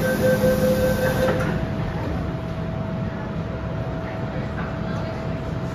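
MTR M-train door-closing warning beeps, a rapid pulsing tone that stops about a second and a half in with a knock as the doors shut. After that, a steady hum from the standing train.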